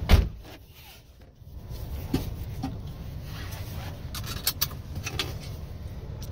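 2007 VW Beetle's 2.5-litre inline five-cylinder engine idling, heard from inside the cabin as a low steady rumble. A single loud thump comes right at the start, and scattered light clicks follow later.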